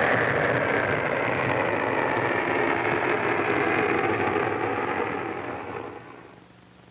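Pershing missile's solid-fuel rocket motor in flight, a loud steady rushing noise that fades out about five to six seconds in as the missile climbs away, leaving a faint low hum.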